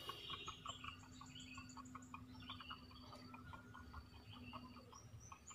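Faint chorus of small animal calls from around the pond: a steady run of short clicking chirps, a few higher chirps and a thin, steady high tone.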